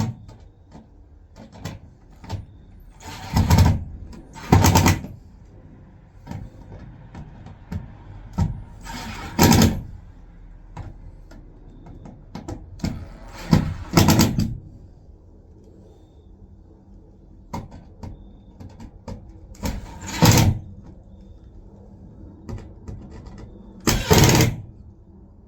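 Cordless drill driving screws in about six short bursts of a second or so each, with clicks and knocks of handling and parts between them.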